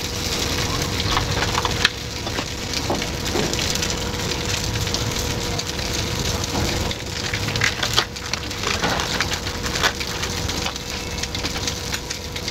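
Food sizzling and crackling as it cooks in hot oil or on a griddle, with many scattered sharp clicks and taps of utensils.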